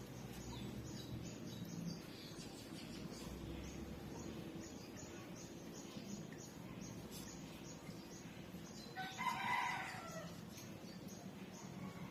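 Faint, quick clicking of puppies suckling at their mother, with a rooster crowing once about nine seconds in, the loudest sound.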